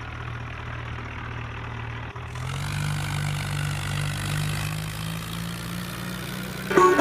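Tractor engine idling steadily. About two seconds in it steps up to a slightly higher, louder running note as the tractor pulls away with the mixer trailer.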